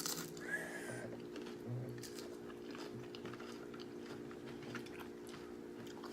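Close-up crunching and chewing of Doritos nacho chips: many small, irregular crunches. A steady low hum runs underneath.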